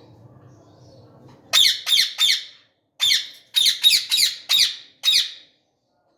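Ringneck parakeet squawking: about nine harsh, shrill calls in quick succession, starting about a second and a half in, with a short break after the third.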